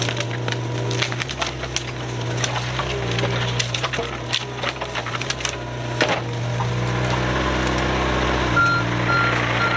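Mini excavator engine running steadily while wood cracks and splinters in many sharp snaps. Near the end, four short high beeps sound at even spacing.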